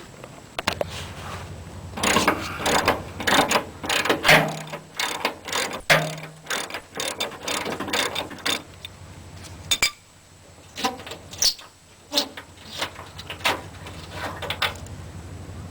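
Socket ratchet wrench clicking in quick runs as the truck-bed mounting bolts are loosened, with a short pause in the middle.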